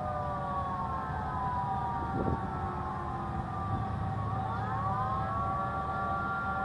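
Several Federal Signal outdoor tornado warning sirens sounding together in a monthly test, among them a nearby 3T22 three-tone siren and 2001-series sirens. They form a chord of steady tones, and some pitches slide down and then back up about four to five seconds in.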